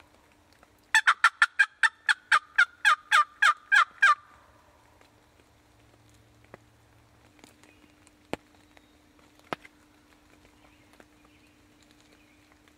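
Wild turkey calling loudly: a rapid run of about fourteen sharp notes over three seconds, each dropping in pitch, spaced further apart toward the end. A couple of sharp clicks follow later.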